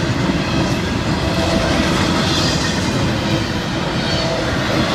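Freight train of double-stack container well cars rolling steadily past: continuous noise of steel wheels running on the rails.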